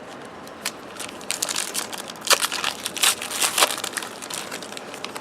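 A trading card pack's wrapper being torn open and crumpled by hand: a few seconds of irregular crinkling and rustling, loudest in the middle.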